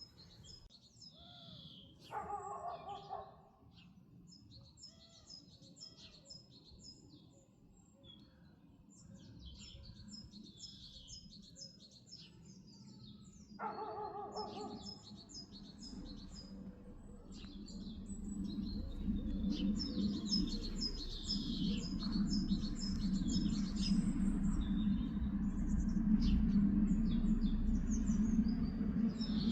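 Small birds chirping and twittering throughout, with two short pitched calls about two seconds in and again around fourteen seconds. A low steady rumble builds through the second half and becomes the loudest sound.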